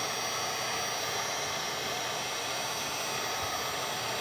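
Wagner heat gun blowing hot air steadily, an even rush with a faint high whine, heating the solder of a laptop board's jack toward its melting point.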